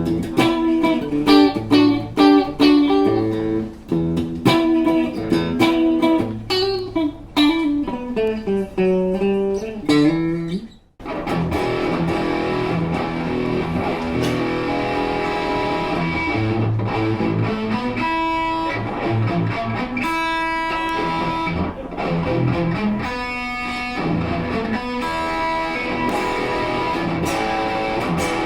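PRS Custom 24 electric guitar played: separately plucked notes, some bent in pitch, then after a short break about eleven seconds in, a denser passage of sustained notes.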